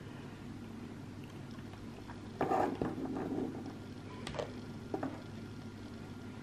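Handling noise from a smartwatch being set on a wooden table and operated: a short rustle a couple of seconds in, then two light clicks as the crown is pressed and the screen changes, over a low room hum.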